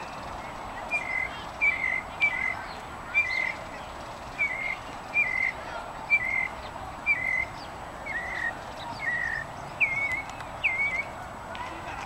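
A songbird singing a steady series of short, slurred whistled phrases, about one to two a second. Near the end a couple of phrases swoop higher.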